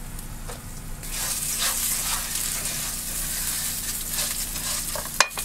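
Food frying in pans on a gas stove, a steady sizzle that swells about a second in as rice is browned and stirred in oil. A single sharp knock near the end.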